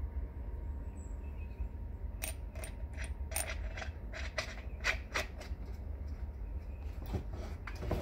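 Steel washer clinking against the axle stub and hub of a wagon wheel as it is fitted on by hand: about a dozen irregular light metallic clicks starting about two seconds in, over a steady low hum.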